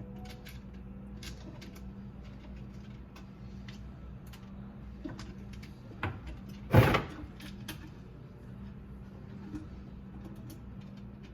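Small clicks and scrapes of hands digging aquarium gravel and debris out of a clogged garbage disposal, with a sharp knock about six seconds in and a loud clunk just after.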